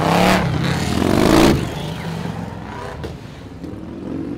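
Scania truck tractor driving past with its engine accelerating. The engine is loudest about a second and a half in, then fades as it pulls away.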